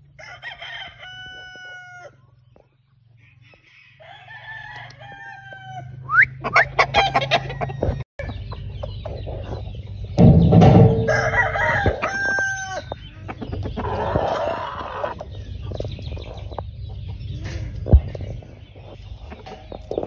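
Gamefowl roosters crowing several times in turn, with clucking and short scuffling sounds between the crows.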